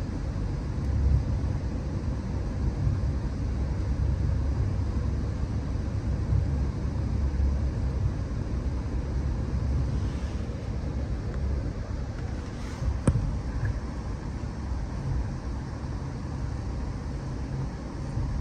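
Steady low rumble of a moving Amtrak Empire Builder passenger car riding the rails, heard from inside the coach, with one sharp click about thirteen seconds in.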